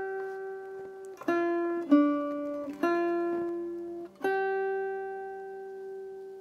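Small-bodied Cort acoustic guitar fingerpicked slowly: a ringing note, then four more single notes plucked between about one and four seconds in. The last is left to ring and die away.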